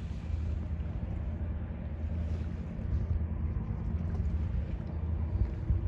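Steady low drone of the passing lake freighter John J. Boland's engines across the water, mixed with a rumble of wind on the microphone.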